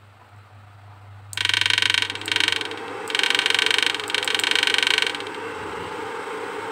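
Susan 1030 SMP fish-shocker inverter firing into a 200-watt lamp load, giving a loud, rapidly pulsing buzz. The buzz comes in two bursts, starting about a second in and again about three seconds in, and cuts off about five seconds in. A softer steady hum carries on after it.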